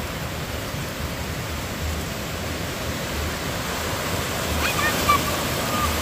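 Small breaking waves washing up the beach, a steady rushing surf. Near the end a brief high-pitched voice calls out over it.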